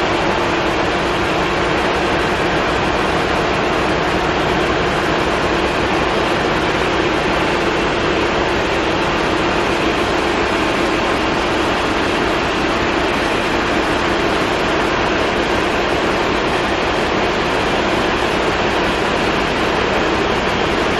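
Large marine diesel engine running steadily in a boat's engine room as it warms up: a loud, even drone with a constant hum underneath.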